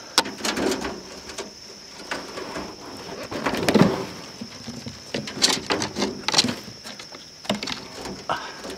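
A hand scraping and knocking on the wooden floor of a snake trap while reaching for a trapped rabbit: irregular taps and rustles, with a louder knock about four seconds in. A steady high-pitched whine runs underneath.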